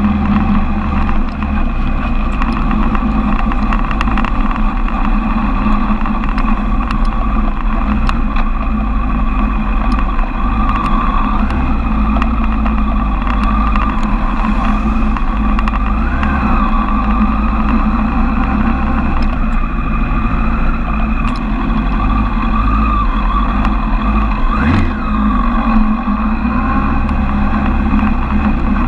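Suzuki Bandit 1200 inline-four engine running steadily at low revs while the motorcycle crawls in slow traffic, picked up by a camera mounted on the bike. A brief rise and fall in pitch comes about 25 seconds in.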